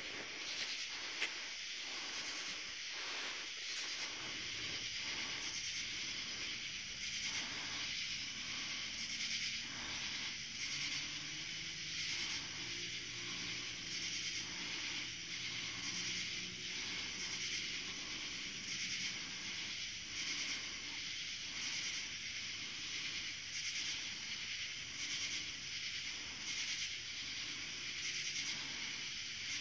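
A steady chorus of night insects, high-pitched and pulsing evenly a little more than once a second. A faint low hum drifts in and out in the middle.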